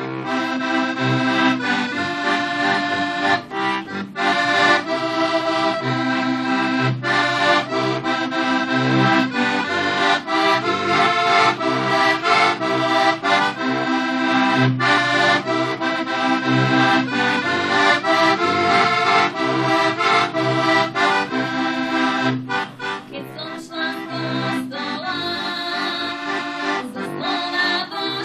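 Heligonka, a Slovak diatonic button accordion, playing a traditional folk tune: chords and melody over a repeated bass-chord rhythm, starting abruptly.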